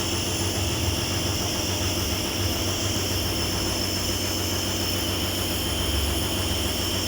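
Nebulizer compressor running steadily during a breathing treatment: a constant low motor hum with a hiss of air and mist.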